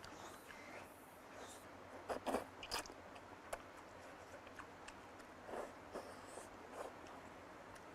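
A person eating close to the microphone: chewing and biting, with a handful of short louder sounds about two to three seconds in and a few more later.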